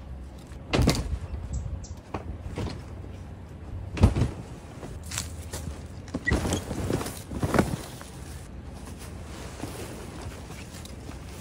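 Eskimo FatFish pop-up hub tent being collapsed, with a few sharp knocks and snaps as its walls and hubs are pushed in, the loudest about four seconds in. Rustling of the tent fabric runs between the knocks.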